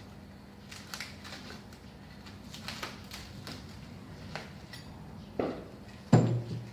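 Small parts and their packaging being handled and rummaged through: scattered rustles and light clicks, then two sharper knocks near the end, the second the loudest, a heavier thud.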